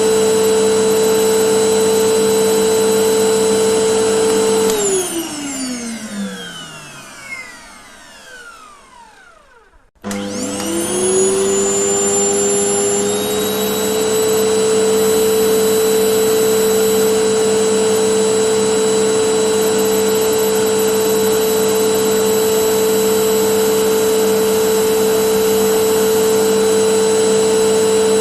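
Vacuum cleaner running steadily with a constant motor hum. About five seconds in it is switched off and the motor winds down, its pitch falling away over several seconds. About ten seconds in it is switched back on, the whine rising quickly and settling into steady running.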